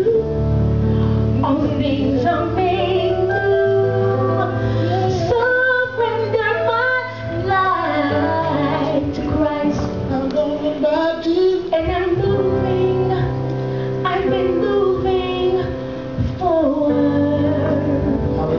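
A woman singing a gospel song, her voice rising and falling in long held notes over live band accompaniment with steady low keyboard and bass notes.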